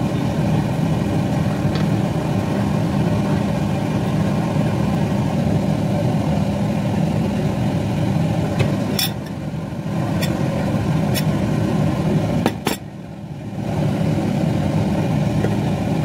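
Steady low mechanical hum, with a few sharp clicks and knocks of cookware being handled at the stove a little past halfway.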